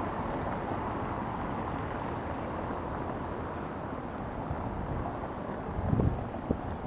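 Steady low rumble of outdoor city background noise, with two short dull thumps about six seconds in.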